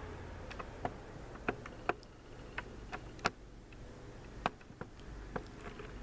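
A dozen or so light clicks and knocks at uneven intervals, the sharpest about three seconds in.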